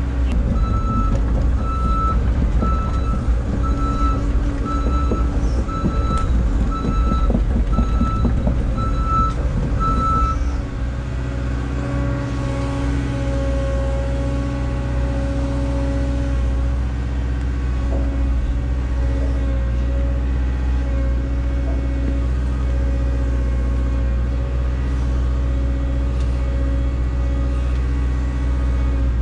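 Heavy diesel engine running under load with a backup alarm beeping at an even pace. The beeping stops about ten seconds in, and the engine then settles to a steady drone.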